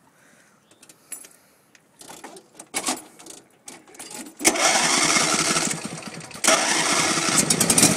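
The 22-horsepower engine of a John Deere LA145 riding lawn mower being started: a few clicks, then it starts up suddenly about four and a half seconds in. About two seconds later it runs louder and steadily.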